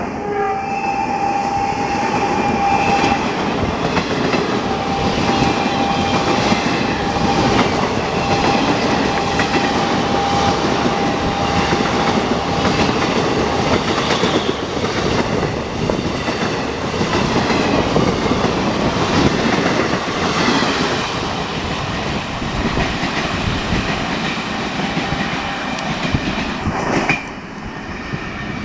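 Passenger coaches of an express train running through at speed behind a WAP-5 electric locomotive, wheels clattering steadily over the rail joints, until the end of the train passes and the noise drops off suddenly near the end. A steady horn note from the receding locomotive carries on faintly over the first several seconds.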